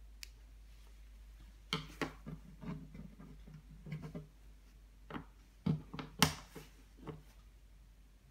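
Plastic Lego Technic beams, pins and gears clicking and knocking against each other and a wooden tabletop as they are handled and set down: a scatter of sharp taps between about two and seven seconds in, the loudest about six seconds in.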